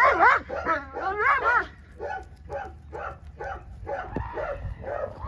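A working protection dog barking and yelping excitedly in a rapid string of high, rising-and-falling yips, about three or four a second. After about two seconds the yips turn fainter as the dog runs off.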